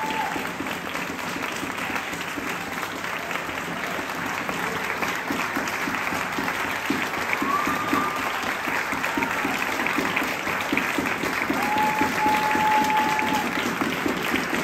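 Audience applause: many people clapping steadily, growing slightly louder toward the end.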